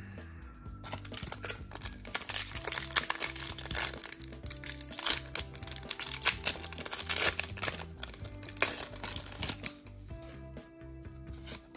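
Foil Pokémon booster pack wrapper being crinkled and torn open by hand, a dense run of sharp crackles that thins out near the end, over background music with a steady beat.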